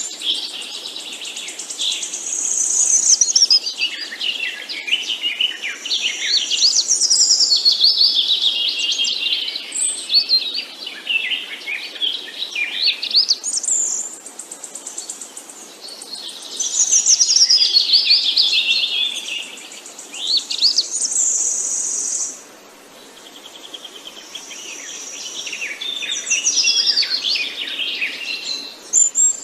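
Songbirds chirping and singing over one another: quick trills and twitters that sweep up and down in pitch, nearly without pause, with a short lull about three-quarters of the way through.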